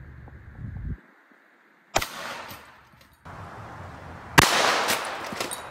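Two gunshots about two and a half seconds apart, each followed by a short echo, fired to check where a red-dot sight is zeroed.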